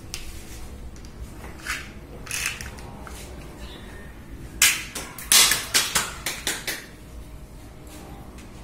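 A toy dart shotgun fires with a sharp click. A struck plastic action figure then clatters down onto the tiled floor in a quick run of knocks, each quieter and closer together than the last.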